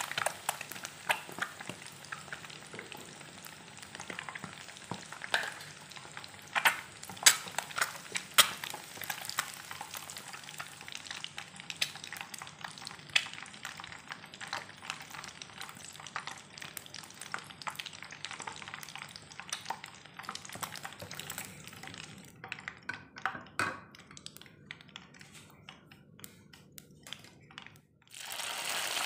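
Peeled hard-boiled eggs shallow-frying in hot oil in a wok, crackling and popping steadily, with a metal slotted ladle moving among them as they are lifted out. The popping thins out later on, and near the end fresh chillies tipped into the oil set off a sudden loud sizzle.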